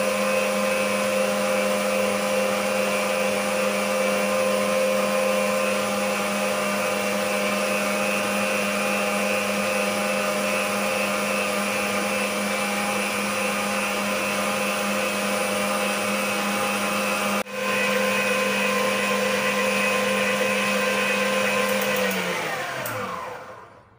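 Stand mixer's motor running at high speed with a steady whine, whisking egg whites to a stiff, shaving-foam-like foam. It breaks off for an instant about 17 seconds in. Near the end it is switched off and winds down, its pitch falling until it stops.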